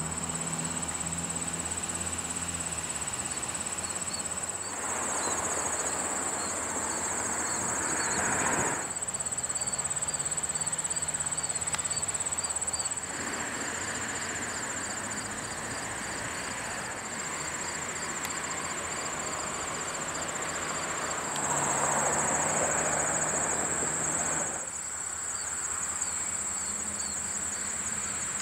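Steady, high-pitched insect chorus that runs on throughout, with a faint low diesel locomotive engine hum under it that comes and goes. Three times, for a few seconds each, a louder rushing noise swells up and drops away.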